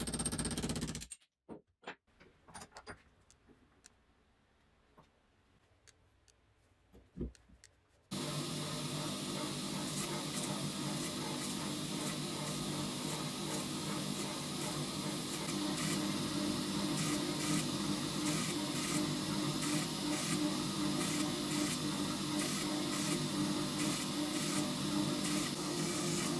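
Hammer blows on a steel punch driving the wedge out of an old hammer head's eye: a few sharp metal knocks at the start and a couple of lighter taps. About eight seconds in, a surface grinder starts grinding the flat of the steel hammer head, a steady loud grinding noise from then on.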